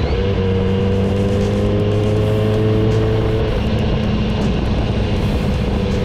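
Kawasaki Z900RS Cafe's inline-four engine running under way, its note rising slowly and then changing about three and a half seconds in, with wind rushing over the microphone.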